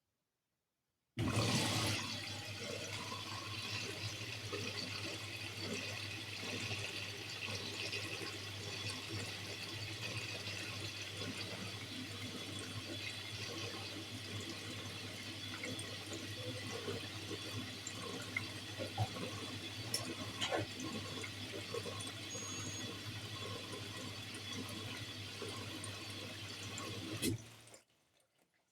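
Bosch Series 4 washing machine running water through its drum during the final rinse, a steady rush of water over a constant low hum. It starts suddenly about a second in and cuts out near the end.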